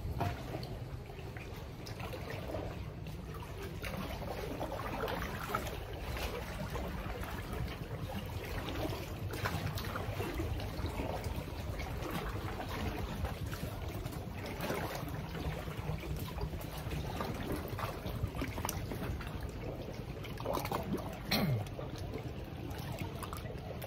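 Water lapping and trickling around a paddled sea canoe, with many small irregular splashes and drips. There is a brief louder thump near the end.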